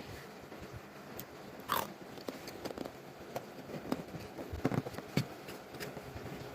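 Handling of a Dairy Milk Lickables chocolate and toy capsule and its packaging: scattered small clicks, taps and rustles, the loudest about two seconds in and a quick run of sharp clicks near the end.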